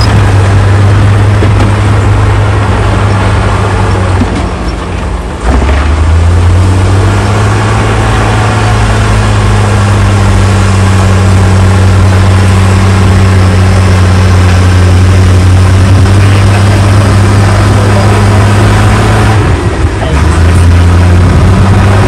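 Heavy diesel engines of a dump truck and a crawler bulldozer running hard as the truck's bed tips up to unload dirt. A steady, loud engine drone that dips briefly about four to five seconds in, settling to a slightly lower note, and dips again near the end.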